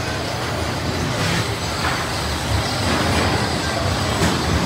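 Primeval Whirl spinning roller coaster car rolling along its steel track into the unload station: a steady rumble with a few faint clicks.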